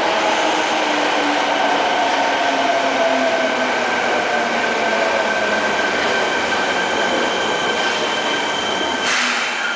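Fukuoka City Subway train braking into the station: rolling rumble with a motor whine falling slowly in pitch as it slows, and a thin steady wheel or brake squeal. A short burst of hiss about nine seconds in.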